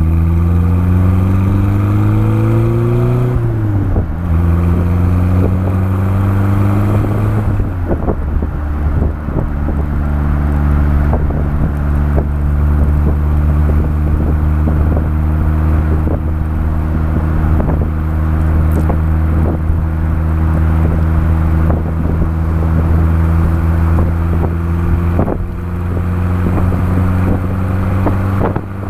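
Honda City Turbo I's turbocharged four-cylinder exhaust under way: it rises in pitch under acceleration, drops at a gear change about three seconds in, shifts again about seven seconds in, then holds a steady cruise. Wind buffets the microphone throughout.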